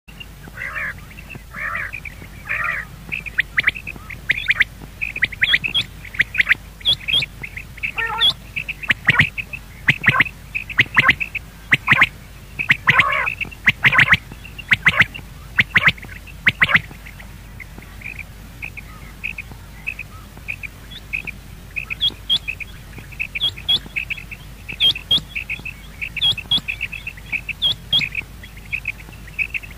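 Game bird calling with many short, squawky notes, dense and loud at first, then thinning after about seventeen seconds to lighter notes repeated about twice a second.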